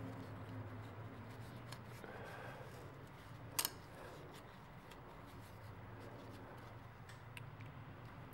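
Faint clicking and light scraping of a plastic oil filter housing cap being worked by hand as its old O-ring is pried off with a flathead screwdriver, with one sharp click about three and a half seconds in.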